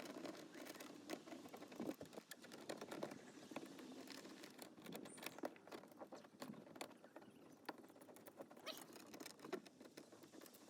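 Faint, irregular small clicks and light rattles of bolts, washers and hand tools being handled while the panel's bolts go in.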